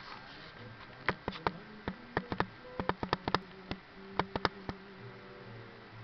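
An African grey parrot's beak biting and cracking into a slice of pizza held in its foot: a quick, irregular run of sharp clicks in clusters, starting about a second in and stopping about a second before the end.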